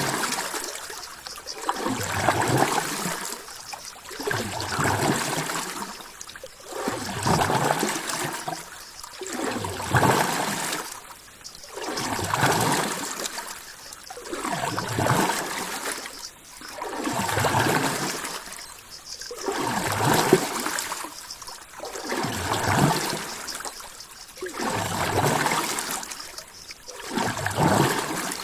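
Ocean water sound, a rushing wash that swells and fades in a steady rhythm, about one surge every two seconds.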